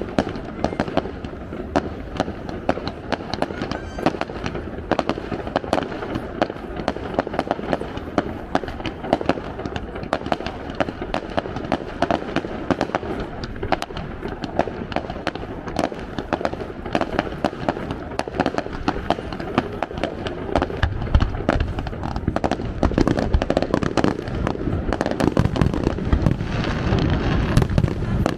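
Japanese aerial fireworks display: a dense, continuous crackling and popping of bursting shells, with heavier low booms joining in and growing louder from about two-thirds of the way through.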